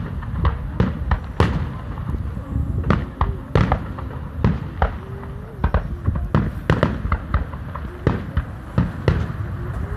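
Aerial fireworks shells bursting one after another, an uneven series of sharp bangs and pops several times a second.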